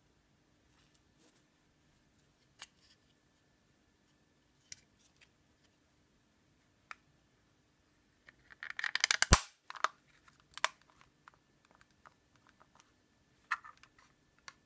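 Translucent plastic case of an AVR ISP mkII programmer being pressed and snapped shut by hand: a few light clicks, then about a second of plastic scraping and crackling that ends in one sharp snap a little past halfway, followed by a few more small clicks.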